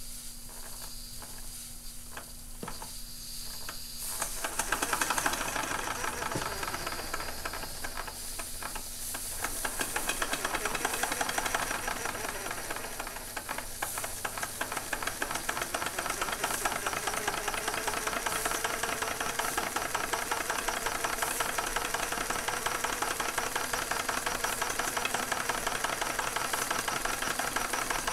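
Circa-1909 Bing live-steam boiler and small horizontal steam engine: steam hissing, growing louder about four seconds in, then the engine running with a fast, even beat of strokes over the hiss.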